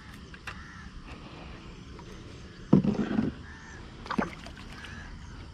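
A crow cawing: one harsh call about three seconds in and a shorter one about a second later.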